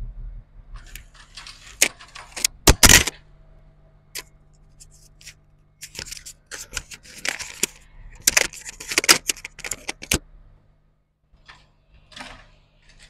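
Clicks and light metallic clatter of tools and circuit boards being handled on a repair bench. The loudest knocks come about three seconds in, and there is a busy run of small clicks between about six and ten seconds.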